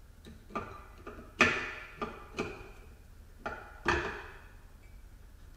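Snap ring pliers clicking and clinking against the snap ring that holds the ZF 6HP26 gearbox's rear ball bearing as the ring is gripped and worked loose. About six sharp metallic clicks, each ringing briefly; the loudest come about one and a half seconds in and just before four seconds.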